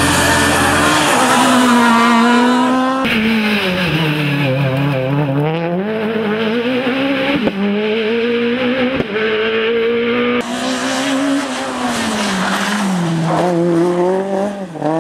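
Rally car engines revving hard through bends, the pitch dropping as the drivers lift off and climbing again as they accelerate away. The sound changes abruptly about three seconds in and again about ten seconds in.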